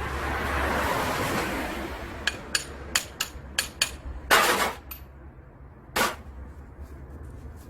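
Metal clicks and clinks from handling a reassembled car alternator: about six quick clicks two to four seconds in, then a louder scraping knock and one more knock about six seconds in.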